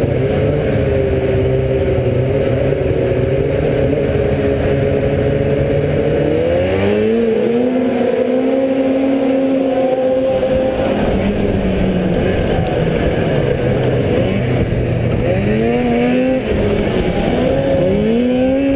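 Two-stroke racing snowmobile engines holding revs on the start line, then accelerating hard off the line with a sharply rising engine pitch about six seconds in. The engine pitch drops and climbs again twice near the end as the sled races on.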